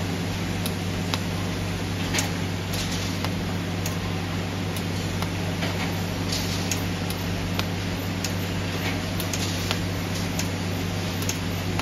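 TIG tack welding on a round steel wire grill grate: a steady low electrical hum with scattered sharp ticks and crackles as the torch tacks the rods to the rim.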